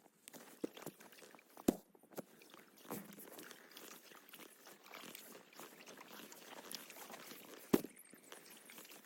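A kayak being paddled: a steady rustling and splashing, broken by a few sharp knocks, the loudest near the end.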